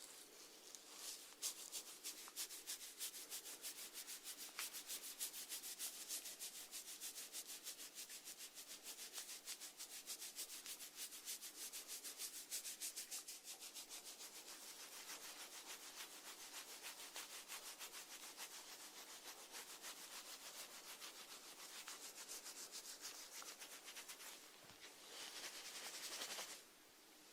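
Close-miked snail rasping at food: a fast run of fine scraping clicks, several a second, thinning out after the first half.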